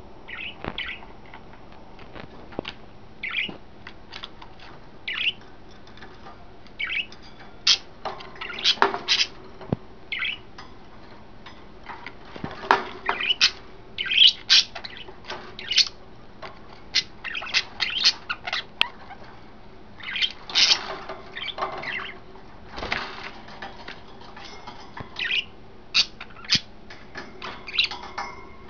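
Pet budgerigars chirping and chattering: many short, sharp chirps, scattered and at times in quick clusters.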